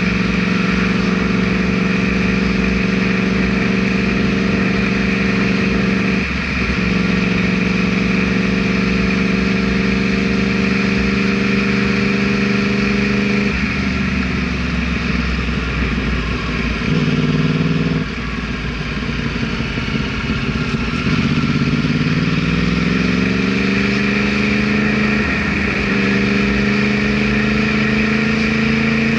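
Yamaha R1's inline-four engine running under way at a steady pitch, with short breaks in the note about six and thirteen seconds in. Past the middle the pitch and loudness drop, then the note climbs steadily as the bike accelerates and settles at a higher pitch near the end.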